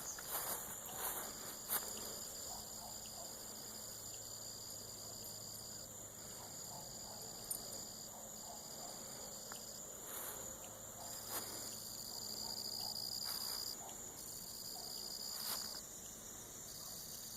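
A chorus of insects trilling steadily and high-pitched, one trill breaking off and starting again every second or two. A few light knocks sound in the first couple of seconds.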